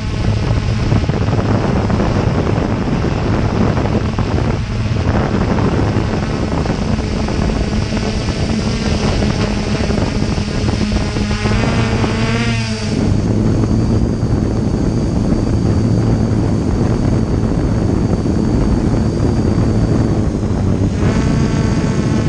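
Aton drone's motors and propellers whirring steadily, heard up close from on board, with wind buffeting the microphone. The pitch wavers and shifts about halfway through and again near the end as the motors change speed.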